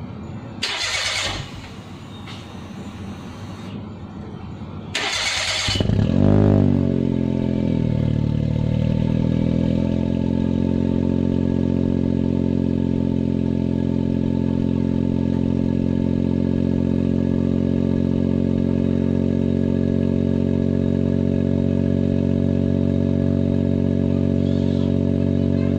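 Cold start of a Perodua Viva fitted with a stock Daihatsu Mira Avy turbo engine, heard at a Jasma FGK muffler. The starter cranks briefly about a second in, cranks again at about five seconds, and the engine catches around six seconds with a brief rev flare. It then settles into a steady, bassy cold idle.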